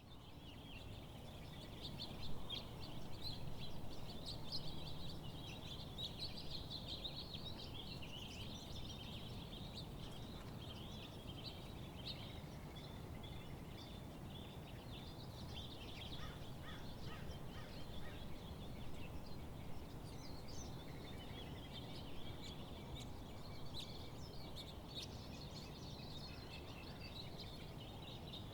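Many songbirds chirping and singing at once, a dense chorus of short calls and trills over a steady low background hum, fading in at the start.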